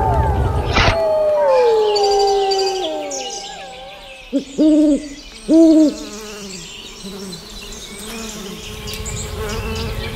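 Wolves howling, the long calls gliding down in pitch and fading over the first few seconds, with a thump about a second in. Then two loud owl hoots in quick succession, followed by a faint insect buzz with crickets.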